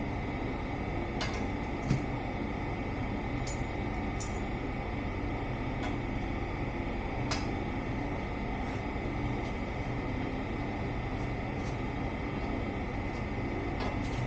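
Steady running noise of a shop fan, with scattered light clicks and taps from hand work.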